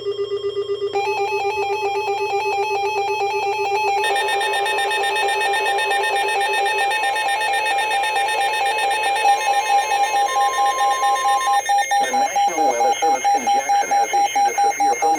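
Several electronic emergency-alert tones sound over one another, each beeping in a fast pulsing rhythm, with new ones joining about a second in and again about four seconds in. A short steady tone sounds near the ten-second mark, and a warbling sound joins under the beeping for the last few seconds.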